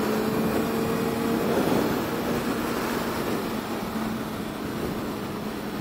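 Honda CB650F's inline-four engine holding a steady note while cruising at freeway speed, under an even rush of wind and road noise.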